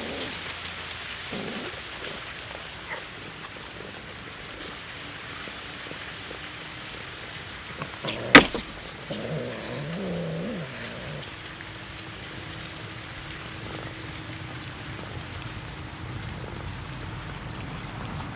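A single sharp knock about eight seconds in, the loudest sound here, followed by a domestic cat meowing once for about two seconds, over a steady background hiss.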